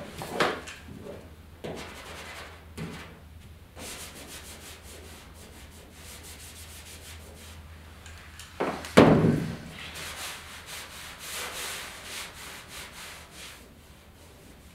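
A stud welder fires one short shrinking shot into the steel hood right at the start. About nine seconds in there is a loud thump, and then a scratchy rubbing as the hot spot is cooled by rubbing snow over it.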